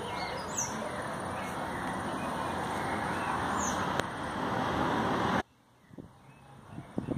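Road noise of a passing vehicle, a steady hiss that grows slowly louder and then cuts off abruptly about five seconds in. A bird chirps briefly twice over it.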